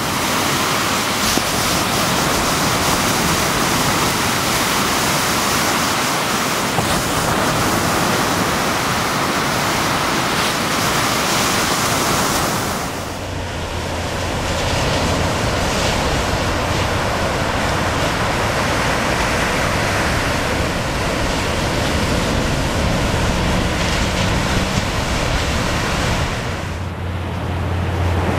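Steady roar of ocean surf breaking on a beach, with wind rumbling on the microphone. The sound dips briefly twice, about halfway through and near the end.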